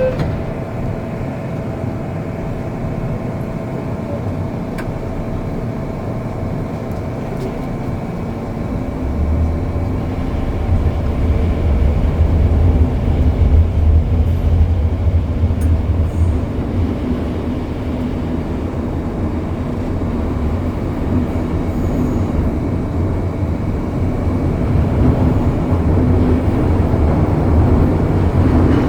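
MTR M-Train electric multiple unit pulling away and running, heard from on board: a steady rumble of wheels and traction. A heavier low rumble comes in about nine seconds in and stays to the end.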